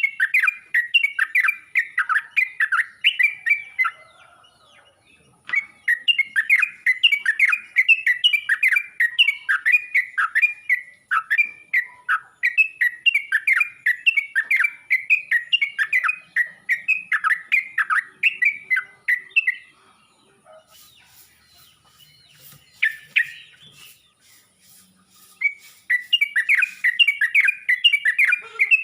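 Trucuk (yellow-vented bulbul) calling: long runs of quick, bubbly chirping notes. The runs break off for a few seconds with one short note in the gap, then start again near the end.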